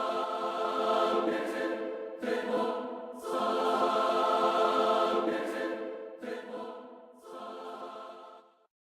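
Background music of choral singing in long held phrases, cutting off abruptly near the end.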